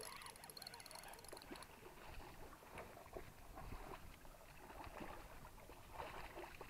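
Faint whirring and ticking of a fishing reel being wound for about the first second and a half, then faint splashing as a hooked pike thrashes at the surface.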